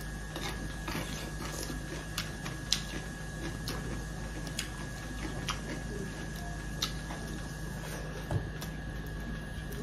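Close eating sounds: chewing and lip smacks with scattered small sharp clicks, as fingers work rice on steel plates. A faint steady hum runs underneath.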